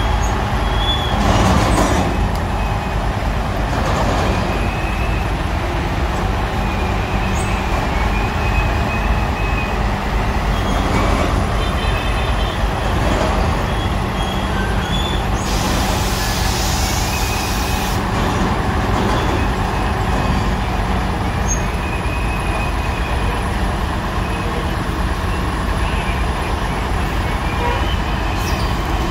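Heavy diesel truck engine running steadily, with a hiss lasting a couple of seconds about halfway through.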